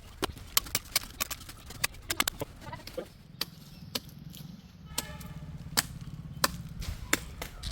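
Irregular sharp knocks and taps. From about halfway through, a chainsaw idles low and steady.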